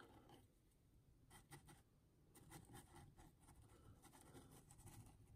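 Very faint scratchy dabbing and scraping of a flat paintbrush working gritty mud texture paste (AK Interactive Muddy Ground) onto a model diorama base, a loose series of soft strokes.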